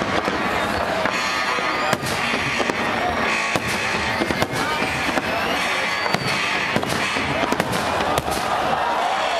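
Aerial firework shells bursting: many sharp bangs in quick succession over a continuous rumble of explosions.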